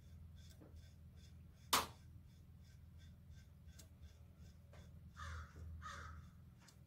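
Quiet handling of a valve spring and retainer on the cast-iron valve head of an International Type M engine: one sharp metallic click about two seconds in, then two short harsh rasps about a second before the end, over a faint steady hum.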